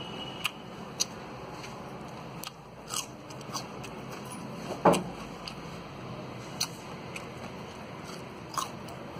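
A person biting and chewing raw turmeric root: scattered crisp mouth clicks and crunches, the loudest about five seconds in, with another bite near the end.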